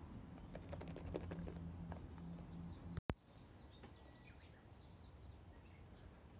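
Faint rapid clicking of a lidded plastic food container being shaken to whip dalgona coffee. After a brief dropout about three seconds in, birds chirp faintly.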